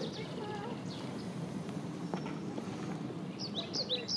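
Small birds calling, with a quick series of short, high chirps starting about three and a half seconds in, over a steady low outdoor background noise.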